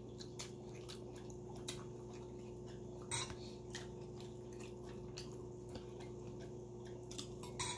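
Quiet eating at a plate of fish: soft clicks and taps of fingers and a spoon against the dish. The two clearest clicks come about three seconds in and near the end, over a steady low hum.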